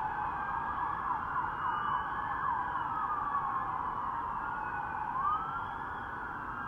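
Several police sirens wailing at once, their pitches sweeping up and down and crossing one another.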